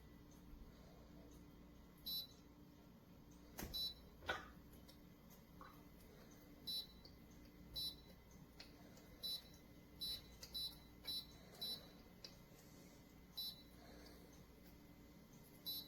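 Short, high electronic beeps from a humidifier's control panel, about ten of them at uneven intervals, with two sharp clicks a little before the middle.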